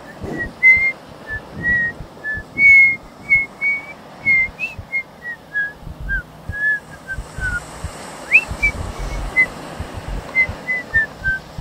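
A person whistling a tune in short notes that wander up and down, about two a second.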